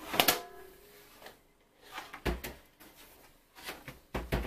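Plastic knocks and clicks as the Xiaomi Mi 3H air purifier's filter is pulled out of its housing by its pull tab. There is a sharp click just after the start, and dull thumps about two seconds in and near the end.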